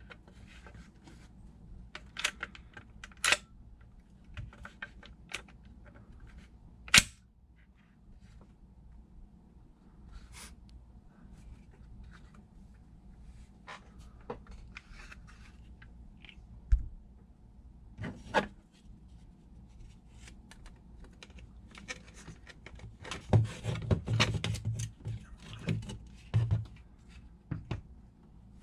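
Hard plastic clicks, knocks and rattles of a 3D-printed airsoft gun being taken apart by hand, its printed parts and spring-loaded slide assembly handled and set down. A sharper knock comes about seven seconds in, and a busier run of rattling and knocking comes near the end.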